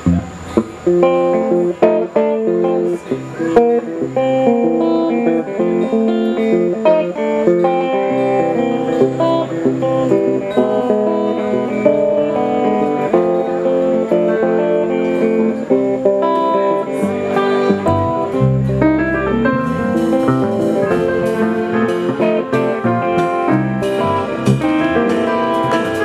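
Guitar picking a blues tune, a steady run of plucked notes with a few deep bass notes about two-thirds of the way through.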